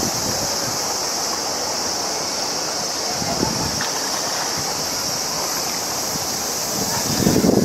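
Steady outdoor waterfront ambience: an even hiss of wind and water, with a constant high-pitched hiss above it.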